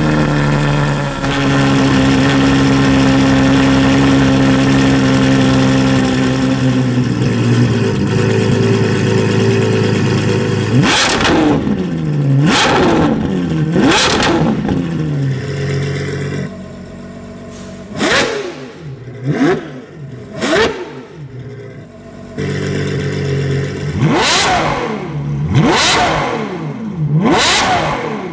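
Ferrari 812 Superfast's naturally aspirated 6.5-litre V12 through a Novitec exhaust, idling high and steady after a cold start, its idle dropping a step about seven seconds in. From about eleven seconds there is a string of sharp free revs with the exhaust valves open, each rising and falling quickly, about nine in all, with idle between them.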